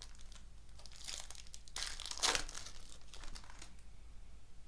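Trading-card pack wrapper and cards being handled, with crinkling rustles; two louder crinkles come about one and two seconds in.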